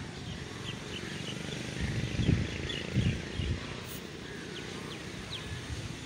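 Small birds chirping in many short, high notes over steady outdoor background noise, with two low thumps about two and three seconds in.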